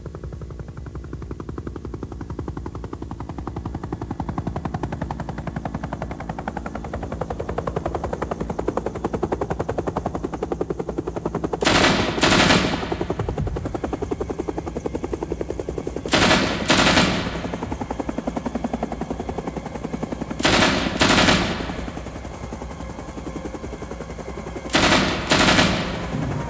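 Battle sound effects: a steady, very rapid rattle of automatic gunfire over a low drone, broken four times by a pair of much louder bursts, each pair about four seconds after the last.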